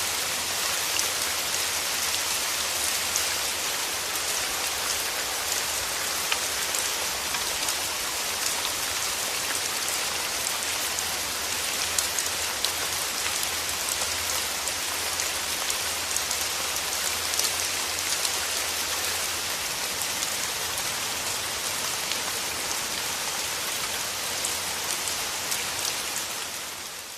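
Steady rain: an even hiss with scattered individual drop ticks, fading out at the very end.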